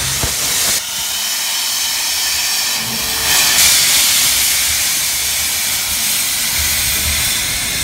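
Steam locomotive venting steam from its cylinder drain cocks: a loud, steady hiss that swells about three seconds in.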